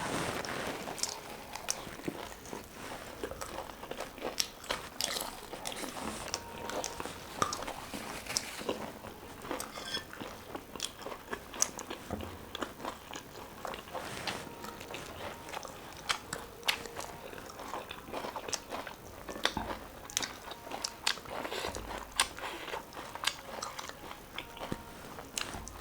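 Close-miked eating: a person biting and chewing food with many irregular crisp crunches and wet chewing sounds.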